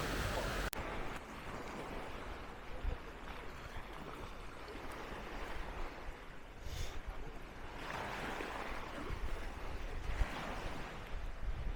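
Small waves washing in on a sandy beach as a steady rush, surging a little louder a couple of times in the second half.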